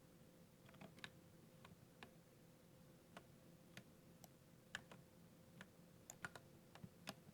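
Mechanical keyboard keys pressed singly in a slow, irregular typing pattern: faint, sharp clicks that come more often in the second half.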